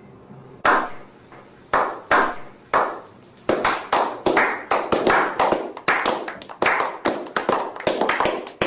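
Hand claps, a few slow ones at first, then speeding up to about three a second.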